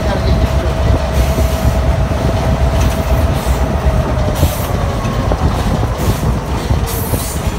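Diesel locomotive rolling slowly, its engine rumbling low while steel wheels click over the rail joints. A steady whine fades out about two thirds of the way through, and there are brief hisses now and then.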